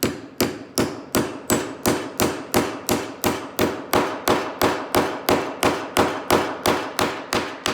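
A hammer driving a nail into cedar boards with a steady run of even taps, about three a second, stopping near the end.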